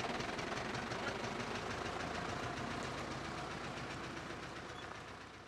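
Farm tractor's diesel engine running with a steady, fast chugging beat, growing fainter over the last second or two.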